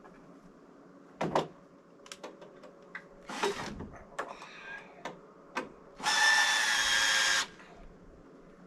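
A few knocks and light clicks, then, about six seconds in, a power drill runs steadily for about a second and a half, likely driving a screw into the timber.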